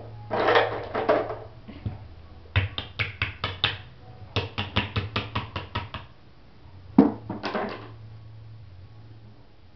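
An eight-month-old baby making two quick runs of sharp, evenly repeated sounds, about six a second, with a few single sounds before and after.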